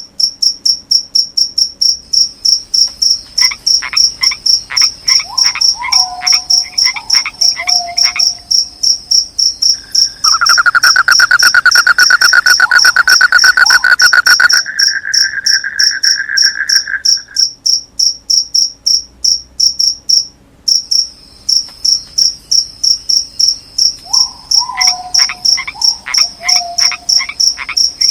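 Crickets chirping in a steady, fast pulsing rhythm, with frogs calling in short runs of clicks and falling croaks a few seconds in and again near the end. In the middle a loud, rapid trill, the loudest sound, runs for several seconds and then stops.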